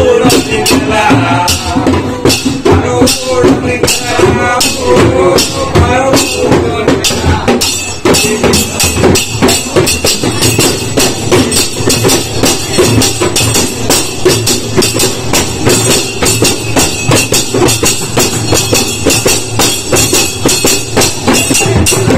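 Several ghumots, Goan clay-pot drums, beaten by hand in a fast, steady rhythm. Voices sing along over the first several seconds, and a high metallic ringing joins the beat from about eight seconds in.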